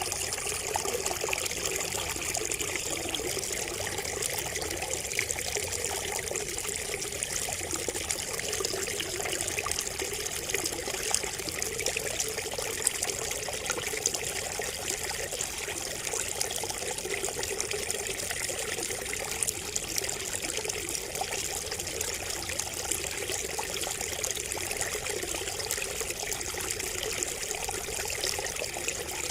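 Water trickling steadily from a bamboo spout, a continuous splashing dribble with small drip clicks scattered through it.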